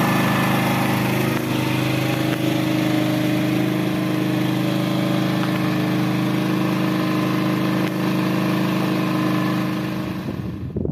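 Portable gasoline generator engine running at a steady speed with an even hum, supplying power for heating. It eases off slightly near the end.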